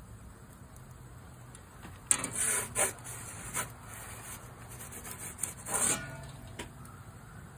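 Metal pizza peel scraping across the cordierite stone floor of a wood-fired barrel oven as it slides under the pizza and back out. It comes as a sharp knock about two seconds in, then several rasping strokes over about four seconds.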